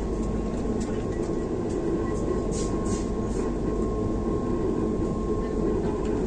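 Vande Bharat electric train heard from inside the coach while running at speed: a steady low rumble of wheels on the track with a constant thin hum over it. A few light ticks come around the middle.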